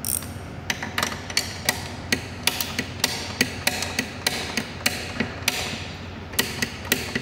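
Hand ratchet wrench clicking as it turns a bolt on a seat rail bracket, about three sharp metallic clicks a second with a short pause near the end.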